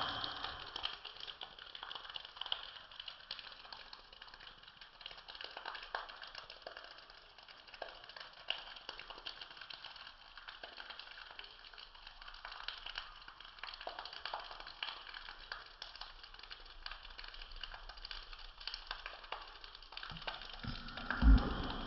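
Heavy rain pattering, with many small irregular ticks and taps over a steady wash of noise. A single low thump comes near the end.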